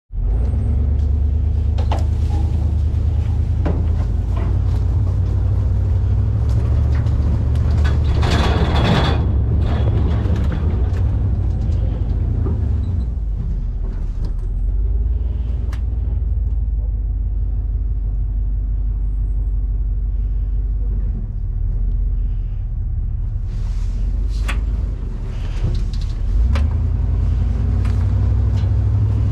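Pickup truck engine running low and steady as the truck crawls up a rough dirt road, heard from the open truck bed, with scattered knocks and rattles and a louder burst of rushing noise about eight seconds in.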